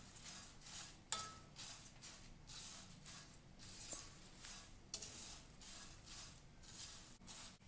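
Thin dry poha (flattened rice) being stirred and turned with a wooden spatula in a pan while dry-roasting without oil, giving faint repeated rustling scrapes about twice a second. About a second in there is a brief ringing knock of the spatula against the pan.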